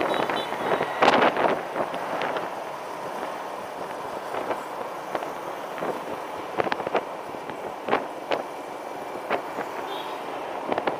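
Wind rushing over the microphone and road noise from a motor scooter riding along a city street, with scattered short sharp knocks and a louder gust about a second in.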